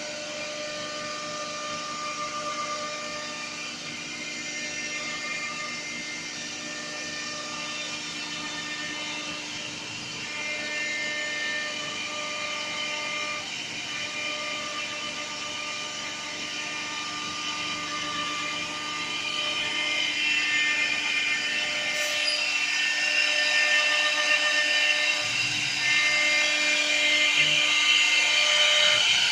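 Double-axis CNC wood copy-turning lathe running: its router spindles whine steadily at high speed while cutting the rotating wooden workpieces. The sound grows louder and hissier from about two-thirds of the way through.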